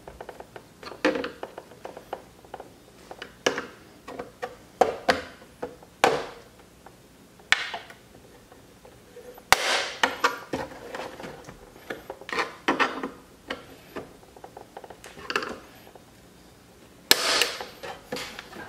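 Flathead screwdriver prying and scraping around the edge of a truck's plastic side-mirror cap, giving irregular clicks, scrapes and snaps as the cap's retaining clips pop loose. There is a busy run of clicks about halfway through and another near the end.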